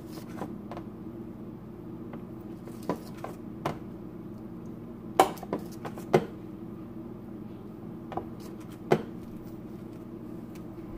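Metal spoon clinking and scraping against a foil-lined roasting pan while pan juices are ladled over a roast chicken: about ten scattered sharp clinks, the loudest about five, six and nine seconds in, over a steady low hum.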